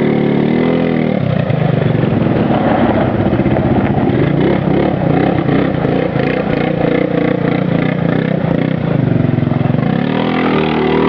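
500 cc ATV engine running. Its revs drop about a second in, it runs on unevenly, then revs up and back down near the end.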